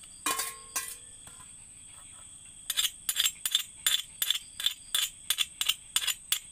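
Metal utensil knocking against a stainless steel mixing bowl. A couple of ringing clinks come near the start as pork is tipped in from another steel bowl, then a steady run of sharp strikes, about three a second, as the pork is mixed with onion, chilli and ginger.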